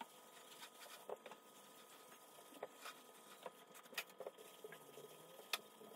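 Faint, scattered light clicks and taps of things being handled and wiped on a kitchen counter during cleaning, irregular, the sharpest about five and a half seconds in.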